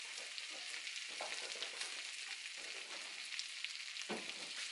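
Butter melting and sizzling in hot pork-chop grease in a cast-iron skillet, a steady frying hiss with small crackles, the fat heating for a flour roux.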